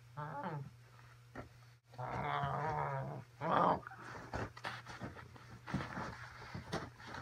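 Growling, snarling sounds in several bursts, the loudest about three and a half seconds in, over a steady low hum.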